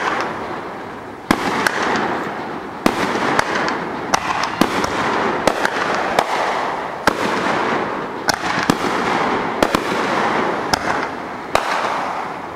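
Fireworks display: a dozen or so sharp bangs, often less than a second apart, over a continuous crackle, dying away near the end.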